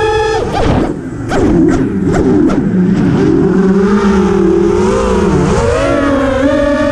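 Motors and propellers of a home-built quadcopter whining as it flies. The pitch breaks off suddenly near the start, a run of clicks follows about a second in, and then the whine comes back lower, wavering up and down as the throttle changes.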